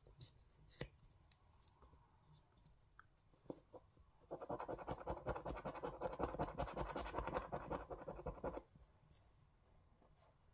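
A coin scraping rapidly back and forth over the scratch-off coating of a National Lottery scratchcard, in a steady run of about four seconds in the middle, after a few light taps and ticks.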